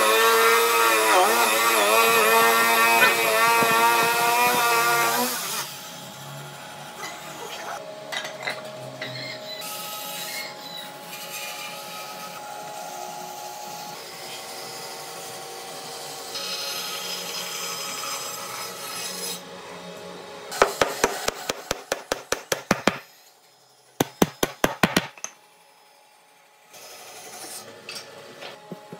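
Woodworking tools working wood. A loud, whining power-tool cut wavers in pitch for about the first five seconds, then quieter machine noise follows. From about twenty seconds in come two quick runs of rapid sharp clicks.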